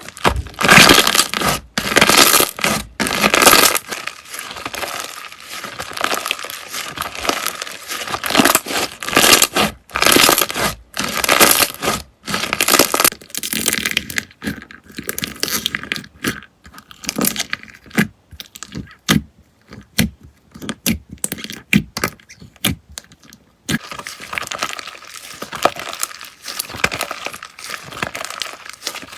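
Slime being squeezed, stretched and pressed by hand, giving irregular crackling and sharp pops. About halfway through the sound thins to scattered single pops, then dense crackling comes back near the end.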